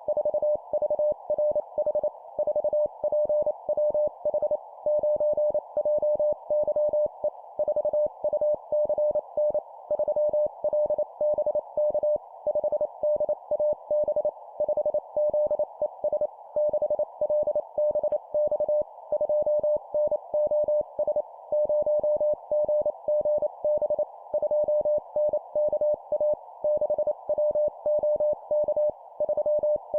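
Morse code (CW) practice tone keyed at 25 words per minute: a single steady-pitched beep in rapid dots and dashes, sending four-character groups of a number followed by three letters, over a steady narrow hiss.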